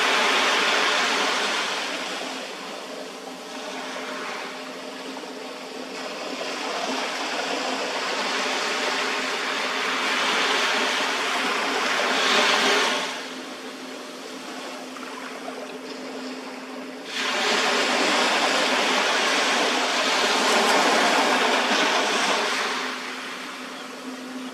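Sea waves washing onto a beach, the surf noise swelling and falling back every few seconds, with a steady low hum underneath.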